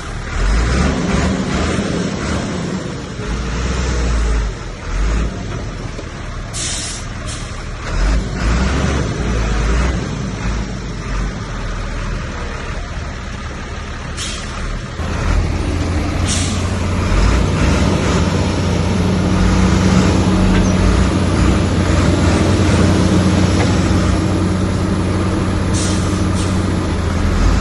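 Heavy diesel earthmoving machinery running, with uneven low thumps in the first half and several short hisses. About halfway through, a steadier, louder engine drone takes over.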